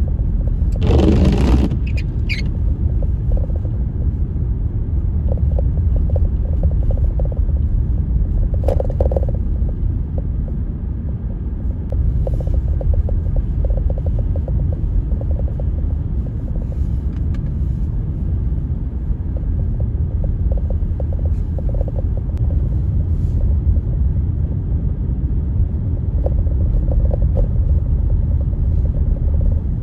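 Blizzard wind buffeting the microphone as a steady low rumble, with a brief louder rush about a second in.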